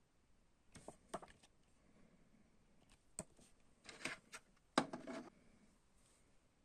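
Hands handling CD album packaging: a few short, soft clicks and rustles in small clusters, the loudest one about five seconds in.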